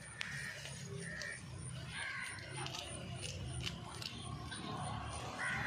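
A goat kid grazing, with a run of crisp clicks from tearing and chewing leaves about halfway through, while crows caw a few times in the background.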